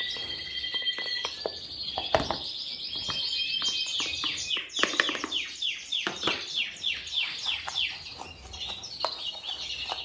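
Canaries singing: held whistled notes, then a fast trill of repeated down-slurred notes, about four a second, through the middle, with a few light knocks mixed in.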